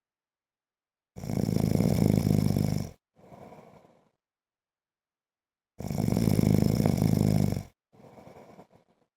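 A sleeping man snoring: two loud, buzzing snores about four and a half seconds apart, each followed by a softer, shorter breath.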